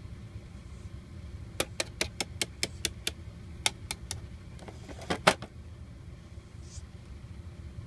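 A run of sharp taps on a hard plastic box lid, about four a second, starting about a second and a half in, then a few more with the loudest near the middle, over a steady low hum.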